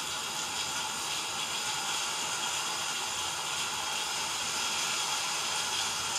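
A steady, even hiss that keeps the same level throughout, with no strokes or breaks.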